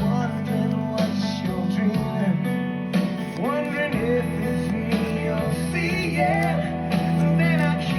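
Background music: strummed acoustic guitar with a singing voice entering about three seconds in.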